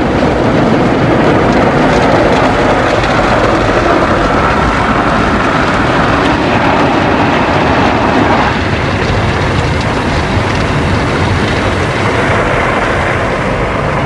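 Loud, steady rushing noise inside a car's cabin while driving, with no distinct tones or clicks. It eases a little in the middle range about eight seconds in.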